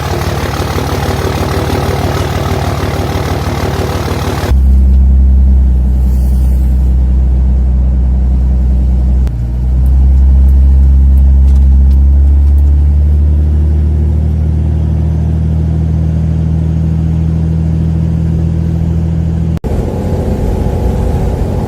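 Cold 5.9 Cummins inline-six turbo-diesel running just after a cold start: first a few seconds of open, rattly diesel idle. Then, about four and a half seconds in, it turns to a deeper, muffled, steady engine drone that dips briefly and later rises slowly in pitch as the truck is driven.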